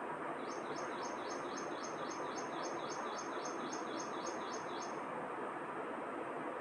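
A bird calling a fast, even series of short, high, falling notes, about four a second, stopping about five seconds in, over a steady background hiss.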